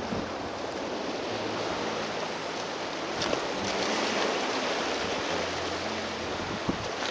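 Sea surf washing and foaming among low shoreline rocks: a steady rush of water, with a couple of small clicks.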